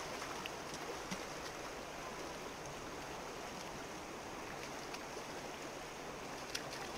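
Shallow river running over a gravel bed, a steady rushing of water, with a couple of faint clicks.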